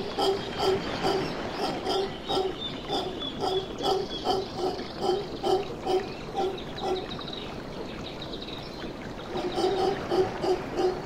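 Mantled howler monkeys calling in a run of deep, rhythmic grunts, about three a second. The grunts die away around two-thirds of the way through and start up again near the end.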